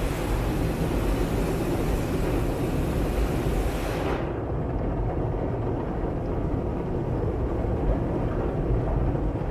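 Automatic car wash heard from inside the car: water spraying hard against the windshield, with the machine's low rumble beneath. About four seconds in, the spray's hiss stops suddenly and the rumble goes on.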